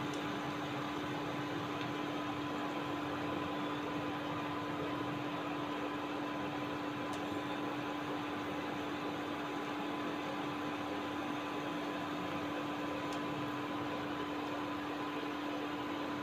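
Chopped onions and curry leaves frying in oil in a kadai, a steady sizzle as the onions soften, with a steady hum underneath.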